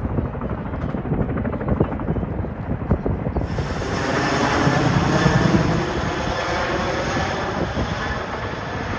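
Formation of CH-47 Chinook tandem-rotor helicopters flying overhead, a low rotor and engine rumble. About three and a half seconds in, the sound abruptly becomes fuller and brighter, with a steady turbine whine over the rumble.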